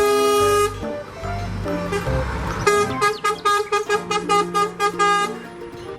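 Truck horn sound effect: one long horn blast at the start, then a fast run of short toots at the same pitch from about halfway in, with background music.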